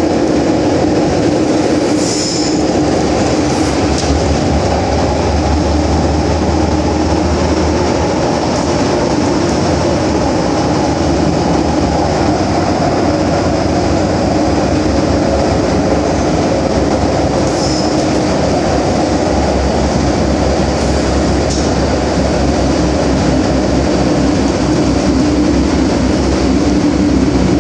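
MTR Island Line M-Train (Metro-Cammell electric multiple unit) running at speed through a tunnel, heard from inside the car: a loud, steady rumble of wheels on rail. A few brief high squeals come through it, about two seconds in, around four seconds, and twice in the second half.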